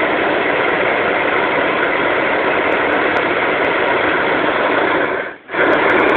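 Hot-air balloon's propane burner firing in a long, steady blast, cut off briefly about five seconds in and then fired again.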